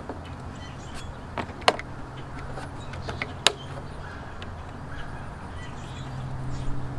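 Sharp clicks and taps of plastic interior trim being handled and snapped back into place in a pickup truck's cab, a few spread through the first half, over a steady low hum.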